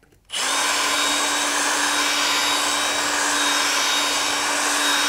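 Drill spinning a Dremel grinding stone against a countersunk hole in an aluminium panel, grinding off the anodizing to bare metal for an earth contact. It starts about a third of a second in and runs at a steady speed.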